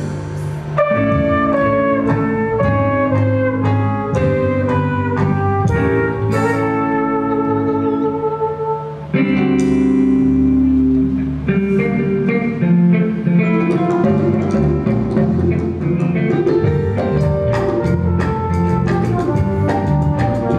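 Live jazz band playing: trumpet over keyboard chords, electric bass, guitar and drum kit, with notes changing on a steady beat.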